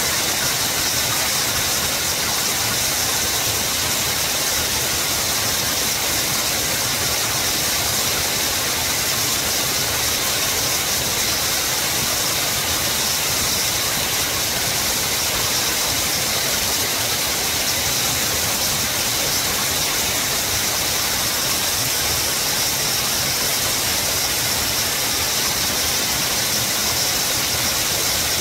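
Mountain stream rushing steadily: an even hiss of water that does not change.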